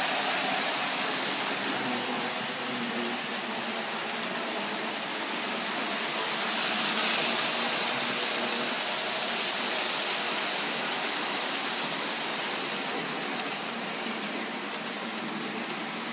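Lionel 2333 F3 model locomotive pulling a long train of freight cars around three-rail track: a steady whirring rumble of motor and wheels on the rails that swells about seven seconds in.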